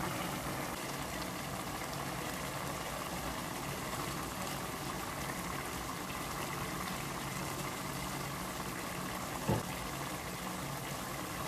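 Pot of pork and pork intestines simmering in broth, a steady bubbling hiss, left to boil so the still-firm meat softens. A single short knock sounds near the end.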